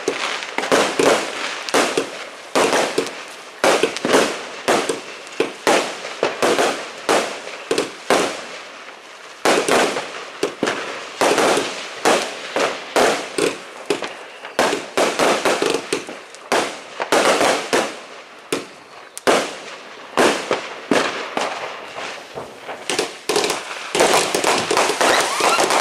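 Fireworks going off continuously: a rapid, irregular string of bangs and pops from firecrackers and rockets, several a second, getting denser and more continuous near the end.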